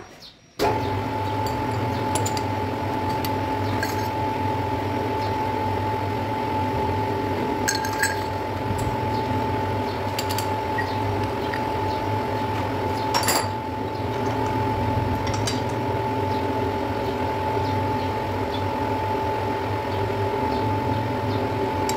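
Steady machine hum with a constant high whine, broken by a few light metal clinks, the loudest about 13 seconds in.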